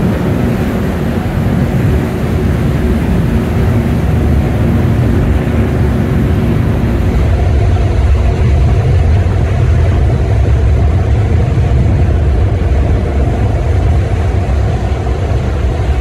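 Large cargo ship passing close by: a loud, steady low rumble of its engine and propeller, with a steady hum over it, and the churn of propeller wash. The hiss thins and a higher hum comes in about halfway through.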